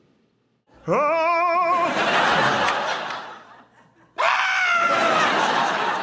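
A person's voice making two drawn-out, exaggerated yawns. The first begins about a second in with a rising cry and trails off into a long breathy exhale; the second comes just after four seconds, starting high, falling, and fading into breath.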